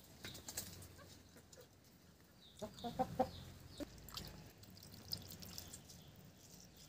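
A hen clucking a few times in quick succession about three seconds in. Faint wet clicks come from fingers mixing soaked rice in a steel bowl.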